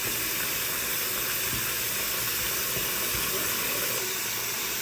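Hot-water tap running steadily into a stoppered basin as it fills.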